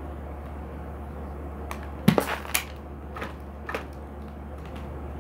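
A low steady hum with a cluster of sharp crackling clicks, the loudest about two seconds in and a few smaller ones over the next two seconds.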